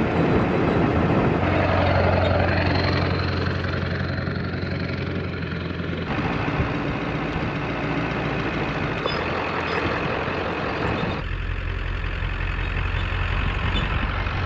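Diesel pickup truck carrying a camper, driving along a dirt road: a steady low engine hum under rough road and tyre noise. The sound shifts abruptly about 6 and 11 seconds in.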